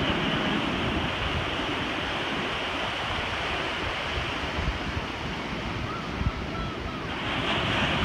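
Ocean surf breaking and washing below, with wind buffeting the microphone in low rumbles; the rush of the surf grows louder near the end as a wave breaks.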